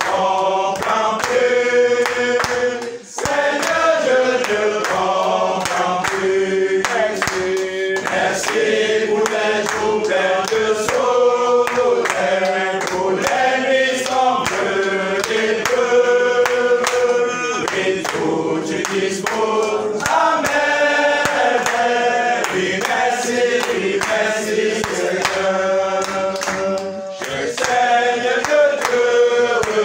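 A congregation singing a French hymn together, with hand claps keeping time.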